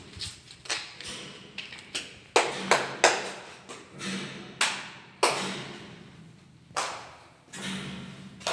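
Footsteps on a bare tiled floor in an empty room: sharp, irregular slaps and knocks, each trailing a short echo.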